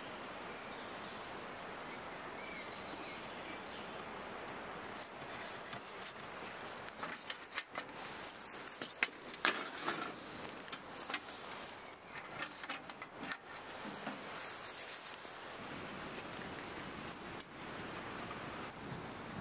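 A run of clinks and knocks partway through as a metal bowl holding bread dough is set onto the wire rack of a small box oven on top of a wood stove and the metal oven door is handled. A steady hiss runs underneath.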